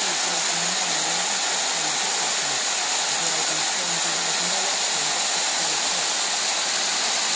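Steady rushing hiss of heavy rain and running floodwater, with a faint muffled voice underneath.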